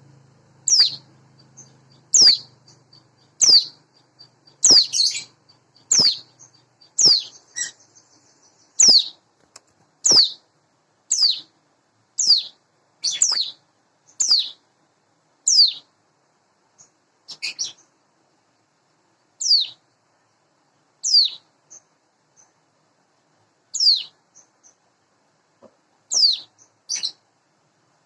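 Ciblek gunung, a mountain prinia, calling: a sharp single note that sweeps down in pitch, repeated about once a second with a few short pauses.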